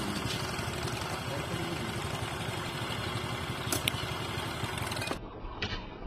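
Motorcycle engine idling with a steady low rumble, with a single sharp click a little past halfway.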